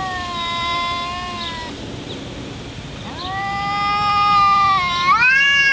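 Cats in a face-off yowling: long, drawn-out wavering calls, the sound of two cats squaring up for a fight. One call fades out early, and after a short pause another starts, rising in pitch and jumping higher near the end.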